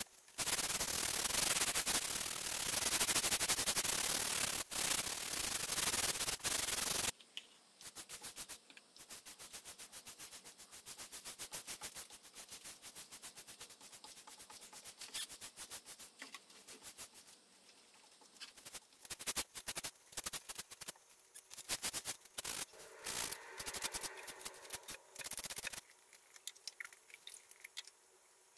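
A sheet of sandpaper rubbed by hand over a birch plywood tabletop: light sanding between coats of finish. It makes a loud, steady scratchy rubbing that cuts off abruptly about seven seconds in. After that come quieter, irregular light strokes and ticks as a brush works finish along the board's edge.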